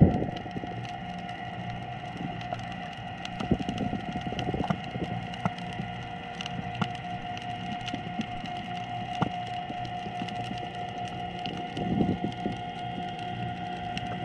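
Underwater sound through a submerged GoPro's housing: a steady hum, scattered clicks and crackles, and a few dull thumps, the loudest near the start and about twelve seconds in.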